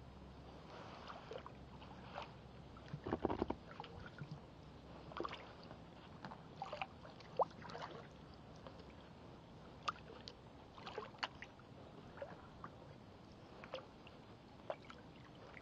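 Kayak paddling on open water: irregular small splashes and drips from the paddle, with sharper knocks mixed in and a busy cluster about three seconds in.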